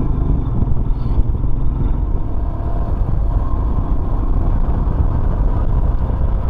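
Royal Enfield Himalayan's single-cylinder engine running steadily while the motorcycle is ridden, under a dense, steady low rumble of road and wind noise.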